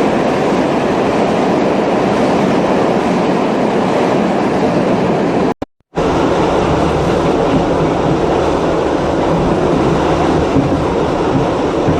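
Subway train running: a loud, steady rumble that breaks off for a moment about five and a half seconds in.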